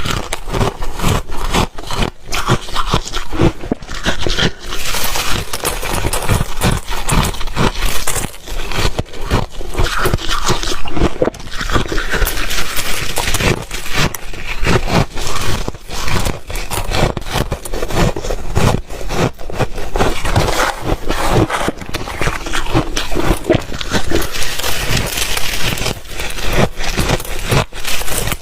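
Ice being chewed close to the microphone: loud, continuous, irregular crunching and cracking as cubes break between the teeth.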